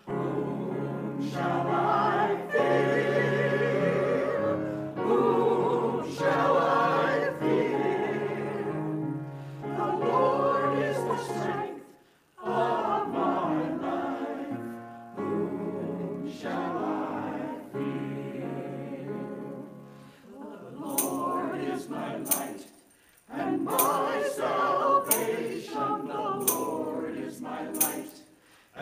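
Small choir of women singing together, in phrases broken by two short pauses, about twelve and twenty-three seconds in.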